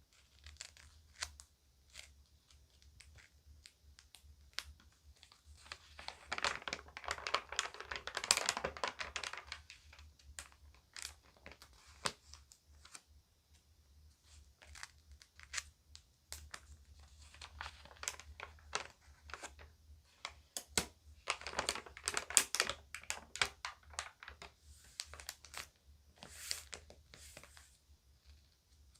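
Magazine pages being handled and turned, crinkling and crackling: scattered soft crackles, with two longer, louder stretches of crinkling about six and twenty-one seconds in.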